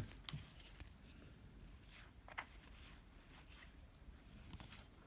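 Near silence with a few faint, scattered light ticks and rustles of trading cards being handled.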